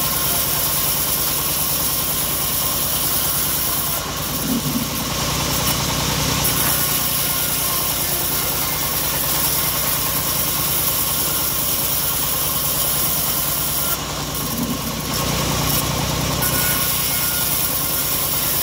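Homemade engine-driven band sawmill running while it cuts a log into planks: a steady engine drone under the continuous hiss of the blade. The sound shifts briefly twice, about four seconds in and again about fourteen seconds in.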